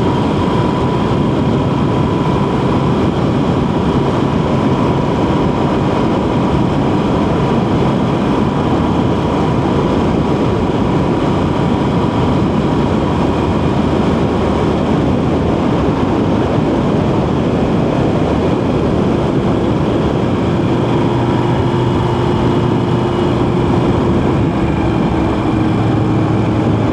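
Motorcycle cruising at a steady speed, its engine droning evenly under wind rushing over the microphone.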